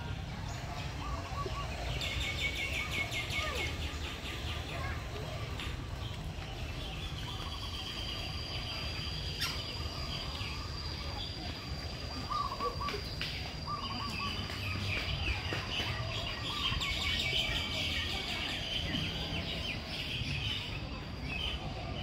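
A crowd of small birds chirping and twittering, the calls coming in busy runs, with a thin steady high tone joining about a third of the way through and a low rumble underneath.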